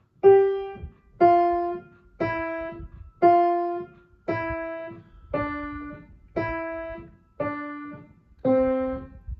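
Piano played slowly one note at a time, about one struck note a second, each ringing and fading before the next. The melody mostly steps downward at a slow practice tempo.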